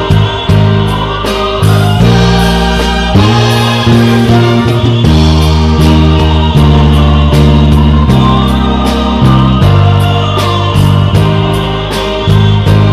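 Choir singing a Filipino Christmas hymn over a band, with a prominent electric bass playing sustained low notes that change about once a second and a steady cymbal beat.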